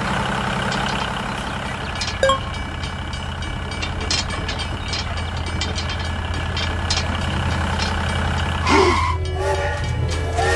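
A vehicle engine running with a steady low drone under scattered clicks. Near the end a train horn starts to sound.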